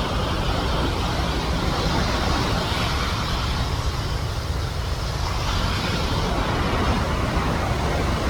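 Steady rush of the Nairobi River's flowing water, an even noise with a strong low rumble.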